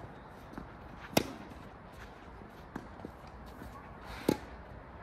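Tennis rally: a racket strikes the ball with a sharp pop twice, about three seconds apart, with fainter knocks of the ball in between.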